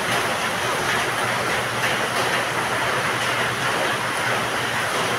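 Heavy rain pouring down, a steady dense rush.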